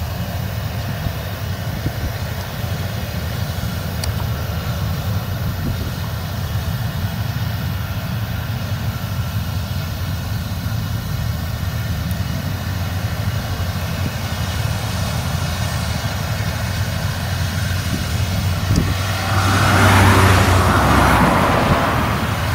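Claas Lexion 770 TT combine harvester running under load while threshing rapeseed: a steady machine drone with a strong low hum. Near the end the sound grows louder, with a broad rushing noise added over the drone.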